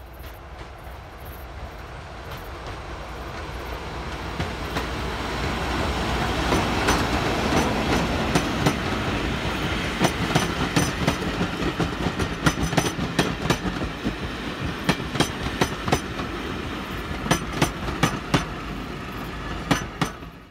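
Passenger train approaching and then its carriages passing close by, the rumble building over several seconds. Once it is alongside, the wheels click repeatedly over the rail joints. The sound cuts off abruptly near the end.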